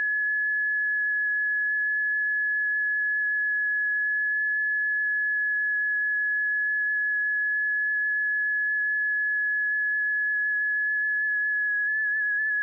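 Seismograph early-warning tone: a single high, steady pure tone that begins to waver in pitch near the end, the sign that the seismometer is picking up ground motion, here the arrival of a distant earthquake.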